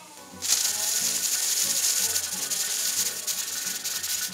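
Steam hissing and sputtering out past the weighted pressure regulator on the vent of an All American pressure canner, with a fast rattle as the weight jiggles; it starts about half a second in. The canner is up to pressure. Low background music runs underneath.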